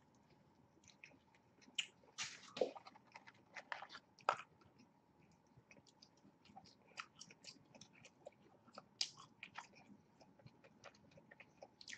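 Close-miked chewing of a burger and French fries: faint, irregular mouth clicks and smacks, a few louder ones now and then.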